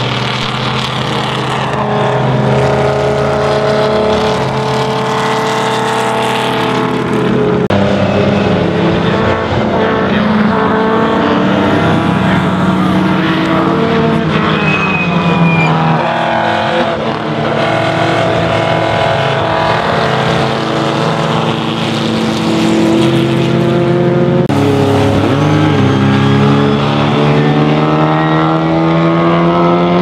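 Engines of historic front-engined racing cars running hard past the track, one shot after another, with abrupt changes between cars. The engine note falls as a car slows in the middle and climbs again as cars accelerate near the end.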